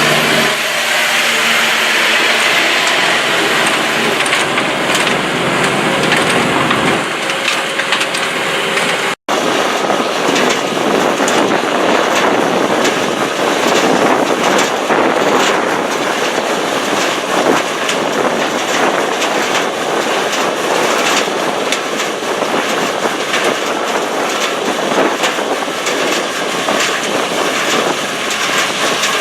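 Revolver RT508 trommel screening plant running: a steady engine hum under a dense, continuous clatter of material tumbling through the rotating screen drum and onto the conveyors. The sound cuts out for an instant about nine seconds in, and the clatter is denser after it.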